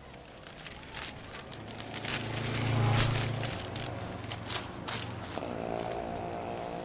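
Paper poster being pressed and smoothed onto a wall by hand: rustling, crackling and scraping strokes. A low rumble swells and fades in the middle, and music begins faintly near the end.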